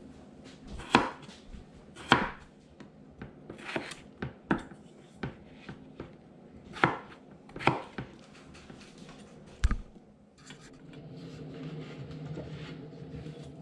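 A cleaver chopping raw potatoes on a wooden cutting board: sharp, separate knocks of the blade hitting the board, coming irregularly about once a second and stopping about ten seconds in. A softer steady noise follows near the end.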